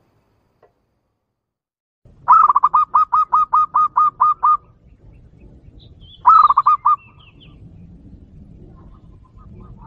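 Zebra dove (perkutut) cooing song, used as a lure call: starting about two seconds in, a rapid string of about a dozen short hooked notes at roughly five a second, then a shorter string of about four notes. Faint higher chirps from another bird follow.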